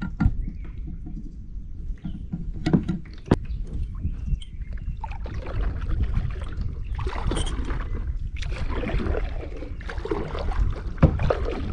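Kayak paddle strokes swishing and splashing through the water, coming regularly from about five seconds in. A few sharp knocks come earlier, and wind rumbles on the microphone throughout.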